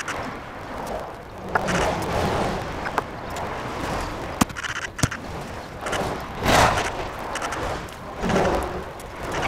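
Stones being dug up and moved: rough scraping swells of stone on stone and soil, with two sharp knocks about half a second apart near the middle.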